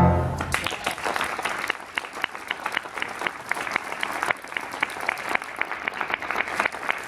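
Audience applauding steadily, just after a children's choir's last sung chord dies away in the first half-second.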